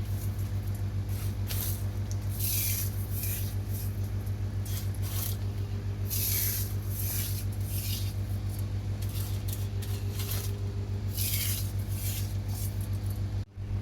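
A spoon scraping and mashing frying masala in a pot, a short hiss with each stroke about once a second, over a steady low hum.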